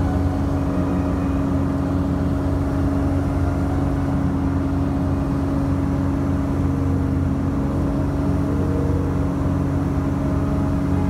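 Small bush plane's piston engine and propeller droning steadily in cruise, heard from inside the cabin, with a constant low hum.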